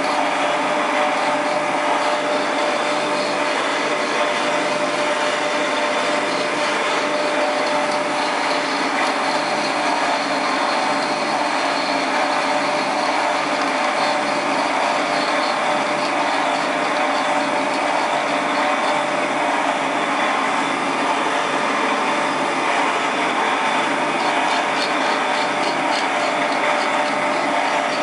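Taig mini lathe driven by a Shopsmith motor, running steadily with a steady whine and its spindle and chuck spinning.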